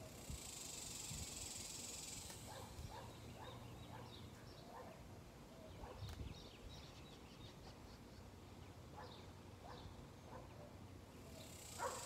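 Faint garden ambience: a high, steady insect buzz that stops about two seconds in and comes back near the end, scattered short bird chirps, and a couple of soft thumps from a shovel digging into soil. A brief louder sound comes just before the end.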